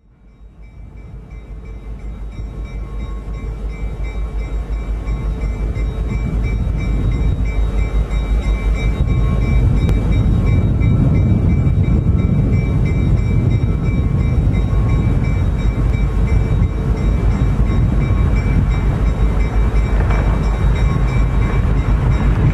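Cab noise of an EMD GP9R diesel locomotive: a steady low engine rumble that fades in over the first several seconds, with faint steady high-pitched whines above it.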